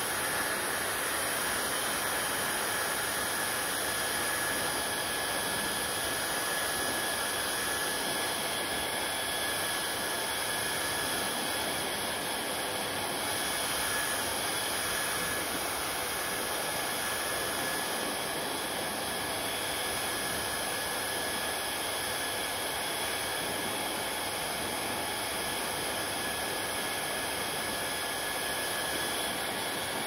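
Hand-held hair dryer running steadily on wet hair: an even rush of blown air with a thin high whine from its fan motor on top.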